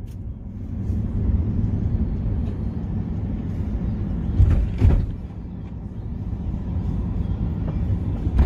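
Heavy road traffic, lorries passing close by, a steady low rumble. Two louder bumps come about four and a half seconds in.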